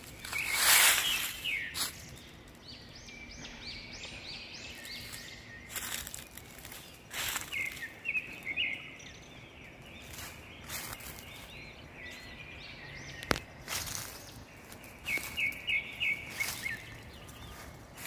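Northern mockingbird singing: runs of short, quickly repeated notes, each figure given several times over before it switches to the next. Brief bursts of noise cut in now and then, the loudest about a second in, with a single sharp click a little past the middle.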